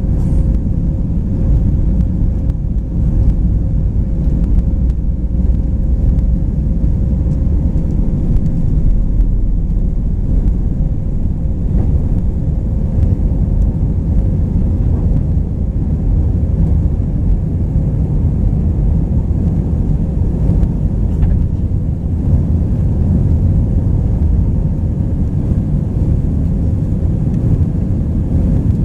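Steady cabin roar of an Airbus A319 in flight, heard from a rear window seat: a deep, even rumble of the IAE V2500 engines and airflow, with a steady hum riding above it.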